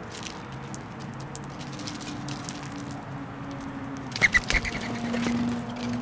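Birds feeding on a seed-covered platform feeder: light scattered ticks of pecking at seed. About four seconds in comes a quick cluster of sharp knocks with short high chirps, the loudest moment.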